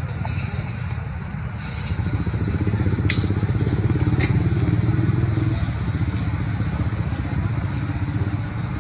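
A motor engine's low drone that grows louder from about two seconds in and eases off after five, with a few sharp clicks along the way.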